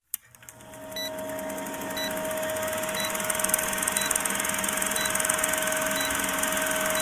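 Vintage film-projector countdown sound effect: a steady mechanical whirr and rattle of a running projector, fading in at the start, with a short beep once each second.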